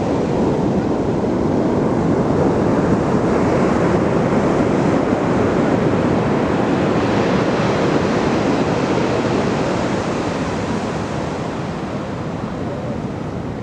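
Ocean surf washing onto a beach: a continuous rush of waves that swells over the first few seconds and eases off near the end.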